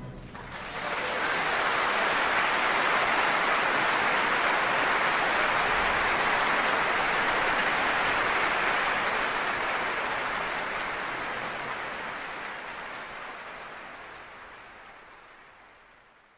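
Audience applauding: it swells up in about the first second, holds steady, then fades out gradually over the last several seconds.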